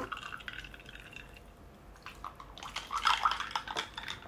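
Apple juice being poured into a glass, its pitch rising as the glass fills, followed by a few drips and small clicks.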